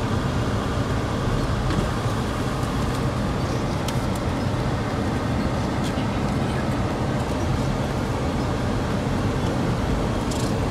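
Steady hum and rumble inside a car driving slowly on a gravel and dirt track: engine and tyre noise, with a few light clicks.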